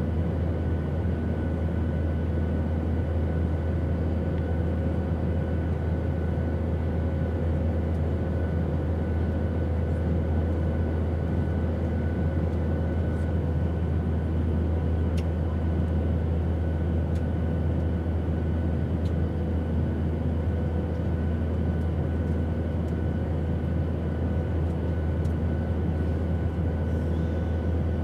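Airplane in flight: a steady low drone of engine and airflow noise, with faint steady hum tones above it and a few faint clicks.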